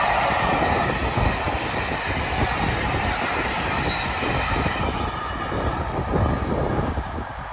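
Passenger coaches of a Class 47-hauled train passing close at speed: a steady rush and rumble of wheels on rail with light clatter. The sound eases as the last coach goes by and fades near the end as the train draws away.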